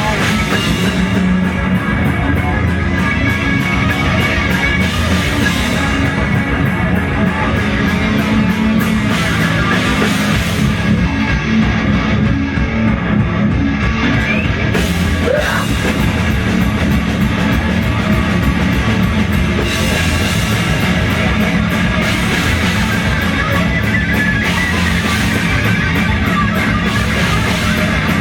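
Rock band playing live and loud: electric guitar and drum kit, with cymbals keeping a steady beat.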